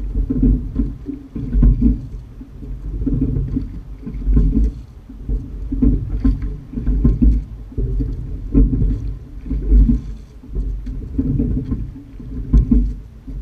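Sculling shell being rowed: low knocks and rushing water swell with each stroke in a steady rhythm, about every one and a half seconds.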